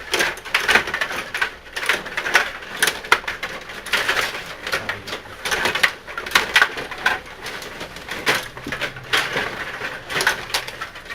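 Rod hockey game in play: an irregular, dense run of sharp clicks and clattering knocks from the rods, plastic players and puck.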